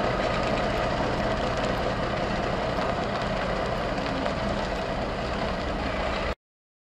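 1990 Freightliner dump truck's diesel engine running steadily as the truck drives slowly away; the sound cuts off suddenly near the end.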